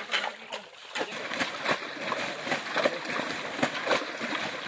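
Shallow muddy stream water splashing and sloshing as it is scooped and thrown with metal pots, many splashes in quick succession. A few sharp knocks come in the first second.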